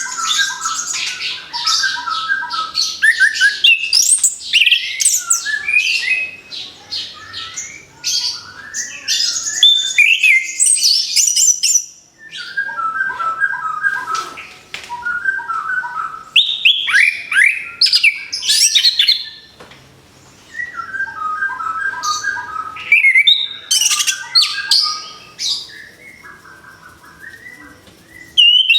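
Orange-headed thrush (anis kembang) singing a long, varied song of quick whistled and chattering phrases, in bouts broken by short pauses about twelve and twenty seconds in and a quieter stretch near the end.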